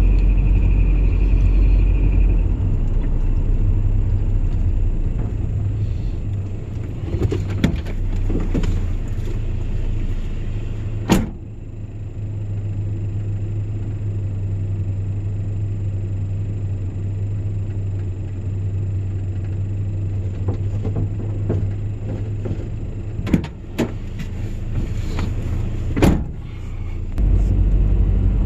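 Engine and road rumble heard from inside a moving vehicle, with a steady high tone for the first couple of seconds and a few sharp clicks or knocks scattered through it.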